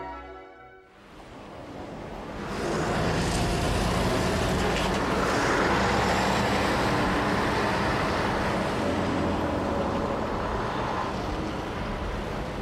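City street traffic: a steady wash of car and heavy vehicle engines and tyres, swelling up over the first couple of seconds and then holding.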